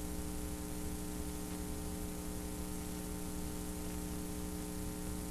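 Steady electrical mains hum, several tones stacked, over a constant hiss, from a blank stretch of videotape playing back.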